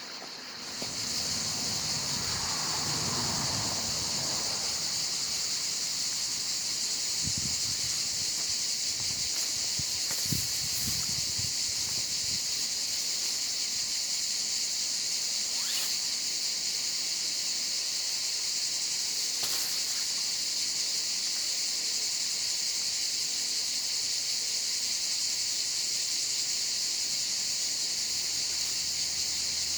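Steady, high-pitched drone of insects chirring outdoors, unbroken throughout, with a few faint low knocks about a third of the way in.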